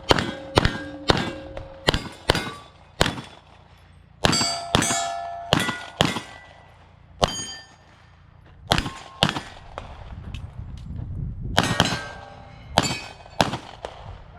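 Pistol shots fired at steel targets, each hit ringing with a metallic clang. The shots come in quick runs about half a second apart at the start and near the end, with more spread-out hits in between.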